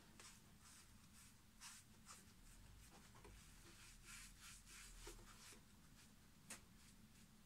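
Faint, irregular rubbing strokes of a sponge wiping oil across a leather half sole, with one sharper tick about six and a half seconds in.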